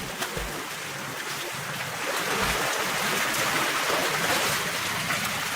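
Steady rushing water noise, growing a little louder about two seconds in.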